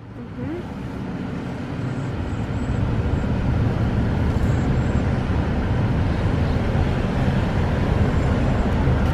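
Car engine and road noise heard from inside the moving car, a steady low rumble that grows louder over the first few seconds as the car gets going, then holds.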